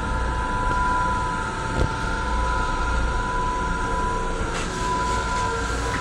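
Steady running noise of an M7 electric railcar heard from inside its small restroom: a low rumble under a constant high whine, with a short knock about two seconds in.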